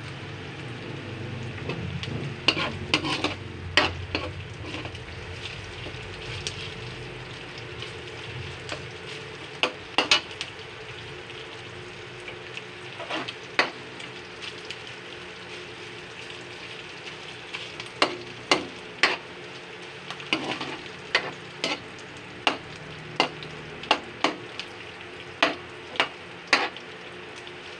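Ground pork with onion and garlic sizzling steadily in a wok as it browns, while a metal spoon stirs it, scraping and knocking sharply against the pan. The knocks come in short clusters, then about once a second near the end.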